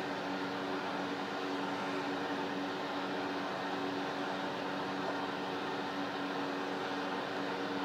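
Steady electric hum with a few low steady tones and a noise haze, like a fan or other motor-driven appliance running in the room.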